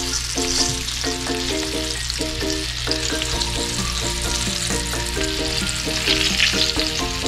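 Breaded chicken wings sizzling steadily in shallow, bubbling hot oil in a skillet, with tongs moving the pieces about halfway through. A light repeating tune plays underneath.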